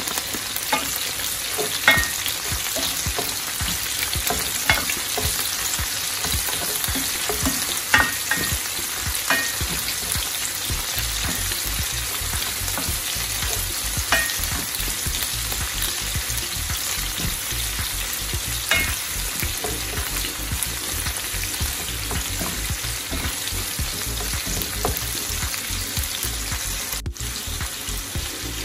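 Chicken, garlic and sliced onions sizzling as they sauté in oil in a pot, with a spatula stirring and now and then knocking or scraping against the pot.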